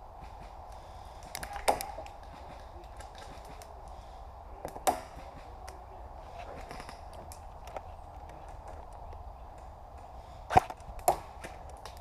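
Airsoft guns firing single shots as sharp pops: a few close together about a second and a half in, one near five seconds, and two half a second apart near the end, the first of those the loudest.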